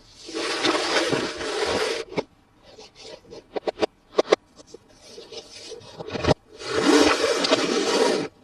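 Toy packaging being handled and opened: two long stretches of scraping and rustling, with sharp clicks and taps between them.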